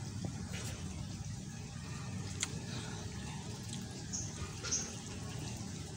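Mukbang eating sounds: chewing with a full mouth and hands tearing roasted chicken, with one sharp click partway through. A steady low rumble runs underneath, and two short bird chirps come about four seconds in.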